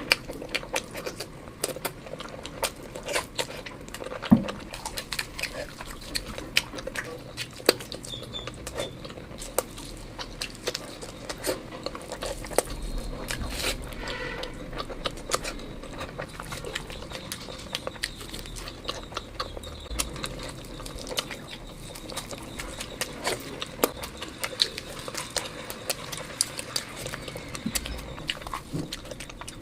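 Close-miked eating sounds: wet chewing and lip-smacking through mouthfuls of curry, a dense run of small clicks and smacks.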